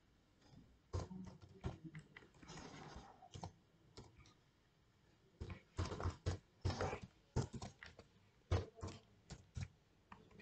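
Quiet typing on a computer keyboard: irregular runs of keystrokes, a few about a second in and a denser flurry in the second half, as a line of C++ code is entered.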